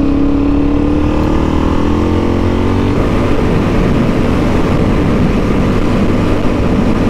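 Suzuki DR-Z400E single-cylinder four-stroke engine running as the dirt bike rides along at speed. About three seconds in, the steady engine note turns rougher and noisier.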